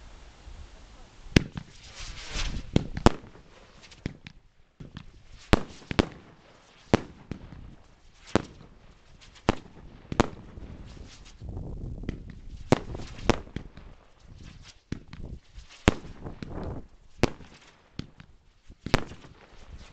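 The 5035 Hurrican fireworks battery firing shot after shot: sharp bangs come at irregular intervals of about a second, with a hissing crackle between them.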